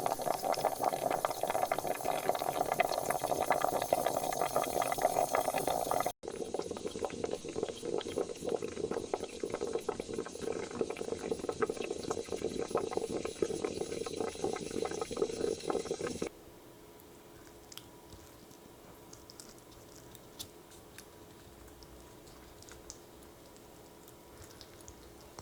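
Water boiling in a pot used as a water bath, a dense bubbling crackle. About sixteen seconds in it drops abruptly to a much quieter, gentle simmer with faint occasional ticks.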